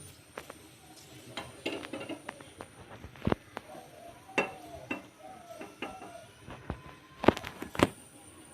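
Small kitchen utensils clinking and knocking as a small ladle of warmed juice is taken off the gas stove and poured back into a cup. The clinks come one by one, the sharpest about three, four and seven seconds in.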